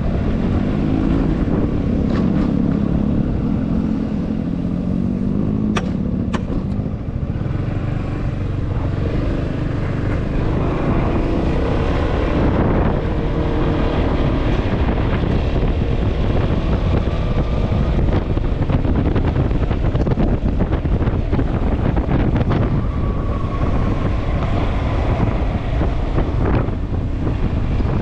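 A Yamaha XMAX scooter's single-cylinder engine running under way, its note rising and falling, under steady wind rumble on the microphone. Two sharp clicks sound about six seconds in.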